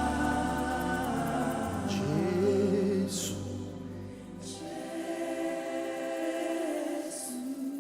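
Gospel worship music with voices singing long held notes. A low bass stops about five seconds in and the music gets quieter.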